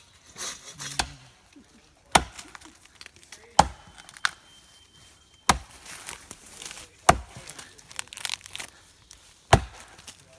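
An axe chopping into a standing tree trunk: about six sharp, solid strikes, one every second or two, with wood chips splitting off.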